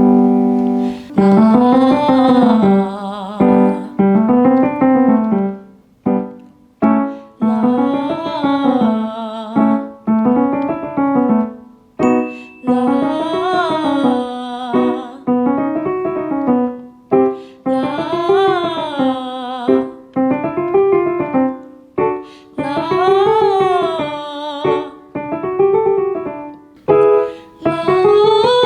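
A woman sings a vocalising exercise on "la": a short scale up and back down, with piano accompaniment, aiming for a head-voice-leaning tone. Her sung turns alternate with piano-only repeats left for the learner, and each round steps a little higher in pitch.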